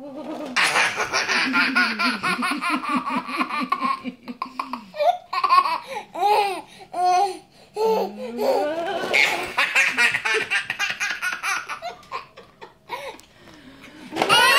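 Baby belly laughing in fits: long runs of quick rhythmic laughter with short separate bursts between them, and a loud new laugh starting near the end.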